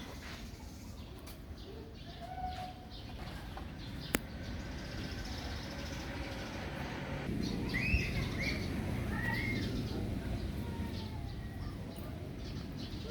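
Outdoor ambience with a steady low rumble, a single sharp click about four seconds in, and a few short animal calls a little past halfway.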